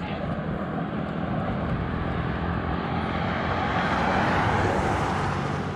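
A pickup truck passing on a concrete highway: a broad rush of tyre and engine noise that builds, is loudest about four and a half seconds in, then eases off.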